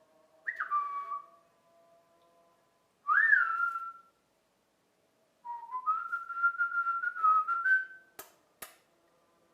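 Cockatiel flock-call whistles: two short whistles that swoop up and drop back, then a longer wavering whistle that steps up in pitch. Two sharp clicks come near the end.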